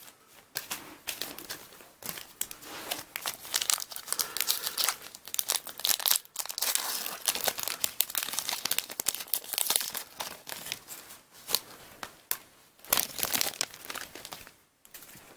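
A Pokémon TCG booster pack's foil wrapper being crinkled and torn open by hand, with irregular crackling and rustling that goes on for many seconds.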